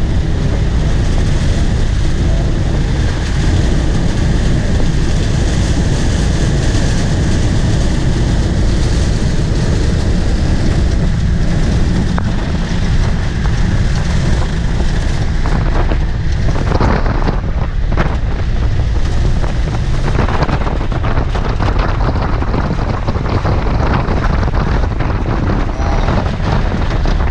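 Piper J-3 Cub's engine running at low power, heard from inside the cabin with heavy wind noise on the microphone, during the landing approach onto a grass strip. About halfway through come several knocks and rattles as the wheels touch down and roll on the grass.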